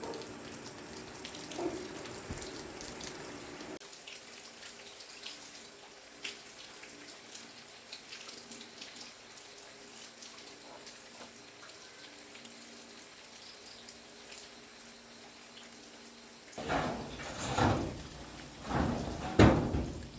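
Water trickling and splashing, with scattered small clicks, then three or four loud rushing bursts near the end.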